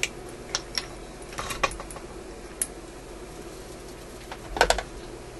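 Small scattered clicks and ticks of hands handling wires and parts on a metal tube-radio chassis, with a quick rattle of knocks about four and a half seconds in, the loudest sound.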